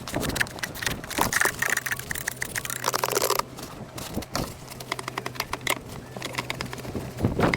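Crunching and scraping of wet, packed snow and ice, with many sharp crackles, over a faint steady low hum.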